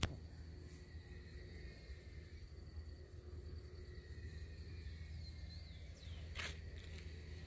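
Faint garden ambience: a steady insect trill over a low rumble. A few short bird chirps come about five seconds in, and a brief sharp sound follows about a second later.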